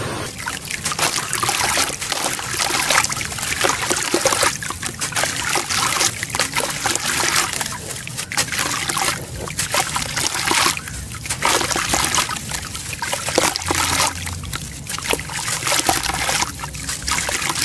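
Wet sand-cement chunks crumbled by hand in a basin of water: dense, crunchy crackling with splashing and trickling water.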